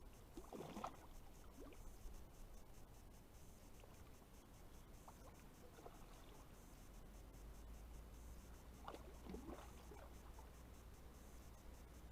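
Faint splashing of water, twice: a hooked carp thrashing at the surface while being played on a pole.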